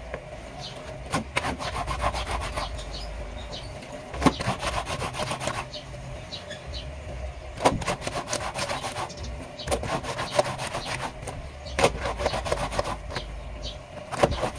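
Stiff brush scrubbing wet laundry against a stone sink counter, rapid back-and-forth strokes in bursts of a second or two with short pauses between.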